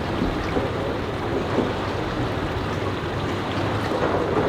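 A boat motor running low and steady under a wash of water and wind noise.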